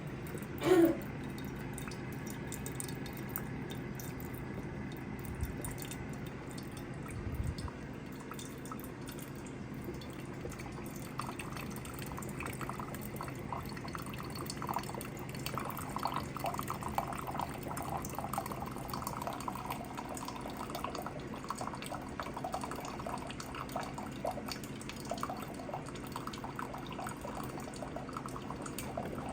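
Coffee maker brewing: liquid dripping and gurgling over a steady low hum, the gurgling growing busier from about halfway through. A brief loud falling squeal sounds about a second in.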